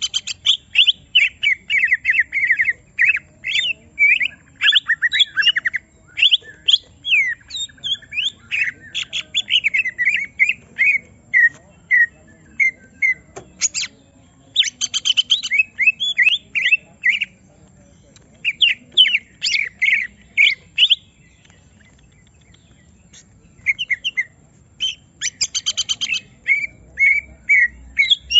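Cucak ijo (green leafbird) singing a rapid, varied song of whistles, chatters and fast trills, in an agitated, aggressive state. The song pauses for a few seconds about three-quarters of the way through, then resumes.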